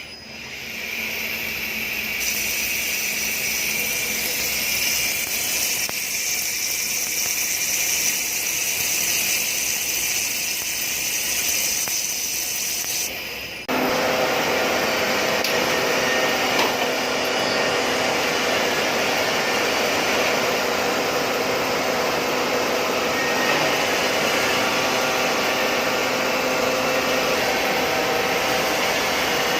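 Steady hiss and whine of metalworking machinery running, with an abrupt change in the sound about fourteen seconds in.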